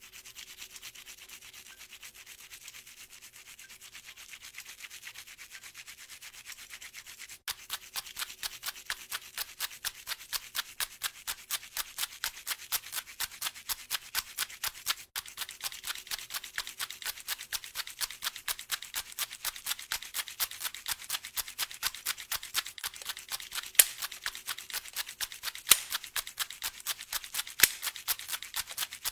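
Faint steady rubbing, then from about seven seconds in a regular rhythm of short scraping strokes, about four a second, played like a hi-hat pattern, with a few sharper accents near the end.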